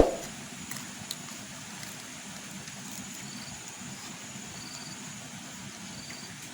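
A single dull thump right at the start, then steady background noise with faint short high chirps recurring about once a second.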